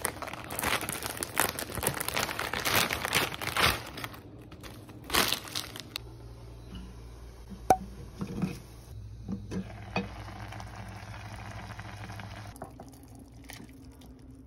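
Plastic instant-noodle packet crinkling loudly as it is torn open. After about six seconds it gives way to a quieter low steady hum with a few soft knocks and clicks of cooking in a pan.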